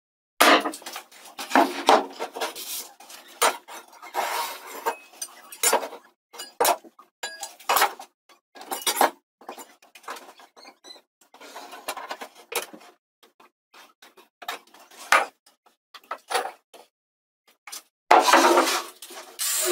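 Plywood panels being handled on a table saw and workbench: irregular knocks, clunks and scrapes of wood set down and slid about. Near the end a louder, longer noise sets in.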